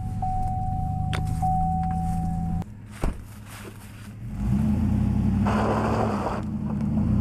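Pickup truck's engine running as it tows a grain wagon along a gravel lane, with tyre and road noise. A steady high tone sounds over the engine for the first two and a half seconds. The sound then drops off with a click, and the engine and road noise build back up about four seconds in.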